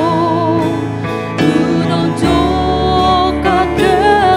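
A woman and a man singing a Garo-language hymn together, accompanied by an acoustic guitar.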